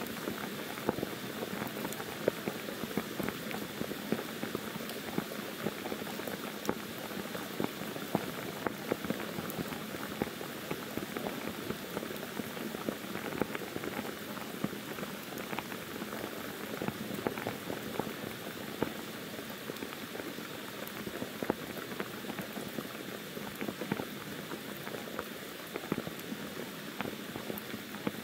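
Steady monsoon rain pouring down, with many separate drop hits standing out from an even hiss.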